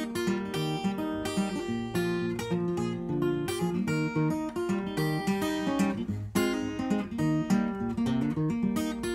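Acoustic guitar with a capo, played solo as the instrumental opening of an old-time country song: a steady run of picked single notes and bass notes over the chords.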